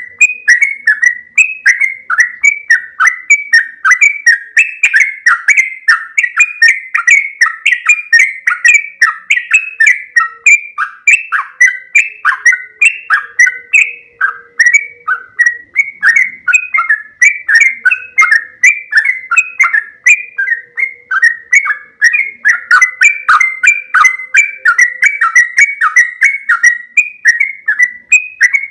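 Yellow-vented bulbul (trucukan) singing loudly in a long, unbroken run of short chattering notes, several a second, the rapid continuous 'ropel' song.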